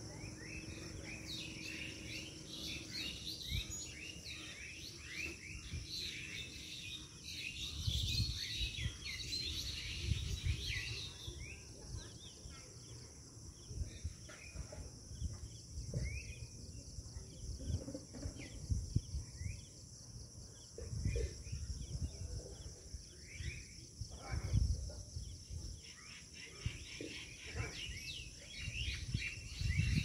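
Many birds chirping and calling together in the trees, busiest in the first ten seconds or so, over a steady high insect drone. Low rumbles come and go now and then.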